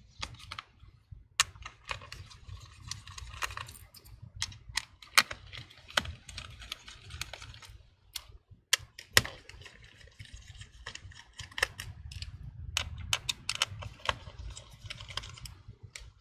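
Phillips screwdriver working the small screws that hold down a laptop battery: irregular sharp metallic clicks and ticks of the tool bit and screws on the metal and plastic chassis, a few louder taps among them.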